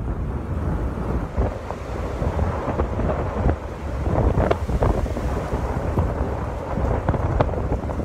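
Wind buffeting the phone's microphone: a gusty, low rumbling noise that rises and falls irregularly.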